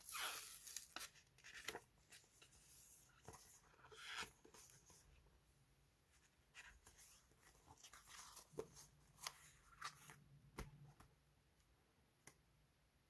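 Paper sticker sheets rustling and crinkling softly as they are handled, loudest in the first second, with scattered light rubs and taps afterwards.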